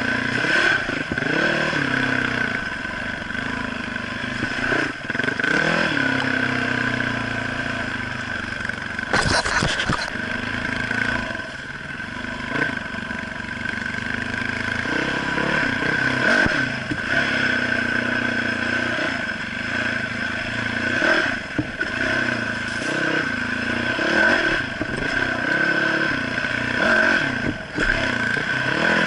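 Trail motorcycle engine being ridden over a rough dirt track, its revs rising and falling again and again as the throttle is worked. A short clatter of knocks comes about nine seconds in.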